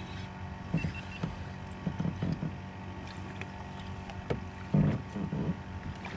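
Knocks and bumps in a small fishing boat while a hooked crappie is brought in: several dull knocks, the loudest about five seconds in, over a steady low hum.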